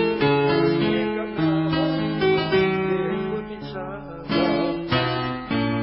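Guitar playing a tango accompaniment, moving through a run of single notes that links one chord to the next, then three strummed chords in the last second and a half.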